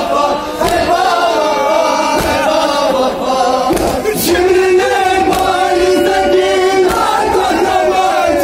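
Men's voices chanting a noha, a Shia mourning lament, in unaccompanied chorus. A lead reciter sings into a microphone and the group joins in.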